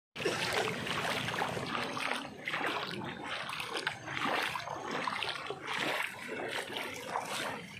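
Floodwater flowing and splashing, with uneven sloshing that comes and goes.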